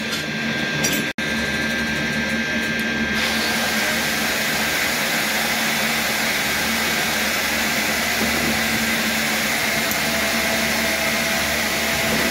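Electric motor of a cylinder boring machine running steadily, a low hum with a thin high whine. It cuts out for an instant about a second in, and a steady hiss joins it a couple of seconds later.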